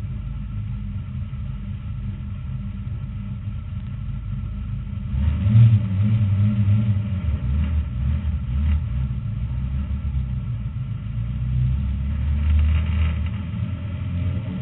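Race car engine heard from inside the cockpit during a warm-up lap: a steady low rumble that gets louder about five seconds in as the car picks up speed.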